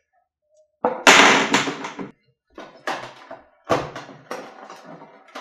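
Board-game pieces and a plastic box insert being handled: a scraping rustle about a second in, then a scatter of light clicks and knocks as plastic parts are moved against the tray.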